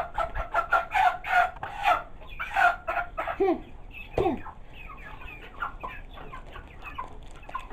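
Chickens on a poultry farm clucking and squawking. There is a dense run of short calls for the first few seconds, then fewer, with a couple of falling squawks around three and four seconds in.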